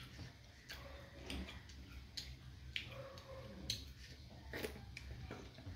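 A person eating with his hand: irregular wet clicks and smacks of chewing, several times a second at uneven spacing, over a faint steady low hum.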